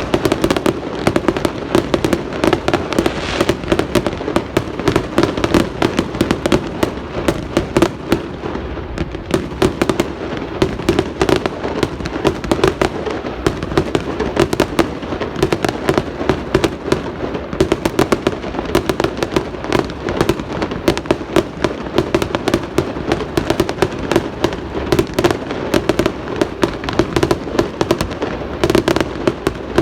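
Fireworks display: a continuous barrage of bangs and crackling reports, many each second.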